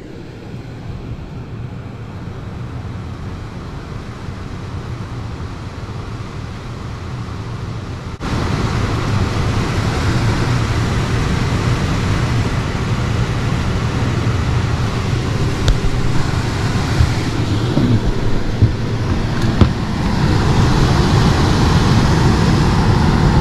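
Steady rushing of an air handler's blower moving air. It jumps abruptly louder about eight seconds in and again near the end, with a few light clicks in between.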